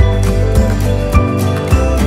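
Background music: sustained, soft chords over a steady low beat.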